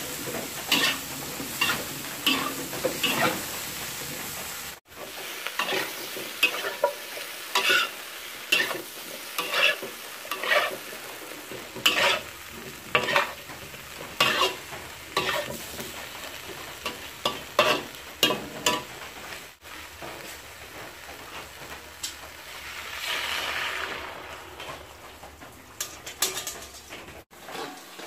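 A spatula scraping and turning taro stems and taro chunks in a wok while they sizzle in hot oil. The scraping strokes come about once a second, and a little before the end there is a stretch of louder, steadier sizzling.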